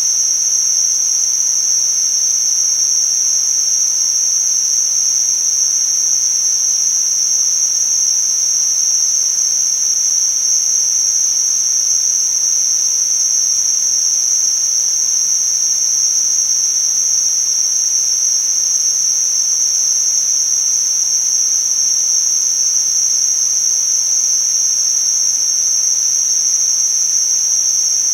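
Tinnitus-masking sound: a steady, shrill hiss confined to a narrow high band of pitch, over a faint wider hiss.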